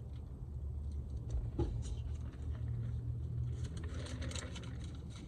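Steady low rumble of a car's cabin: engine and road noise heard from inside the car. A short click comes about one and a half seconds in, and a patch of crackling rustle around four seconds in.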